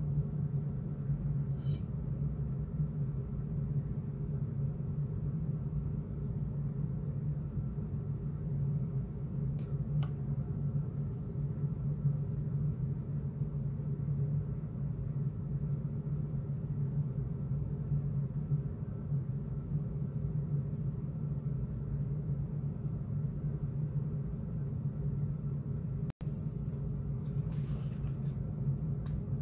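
Steady low hum, with a faint light tick or two about ten seconds in.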